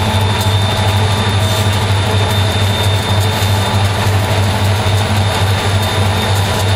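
EMD SD40-2 diesel-electric locomotive running steadily at track speed, its turbocharged 16-cylinder engine giving a strong low drone that pulses evenly.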